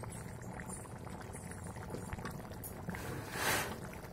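Fish curry in mustard-cumin paste simmering in a kadai, bubbling and popping steadily, with a short louder hiss about three and a half seconds in.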